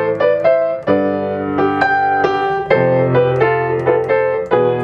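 Grand piano played with both hands: a steady stream of right-hand notes, several a second, over held bass notes that change about every two seconds.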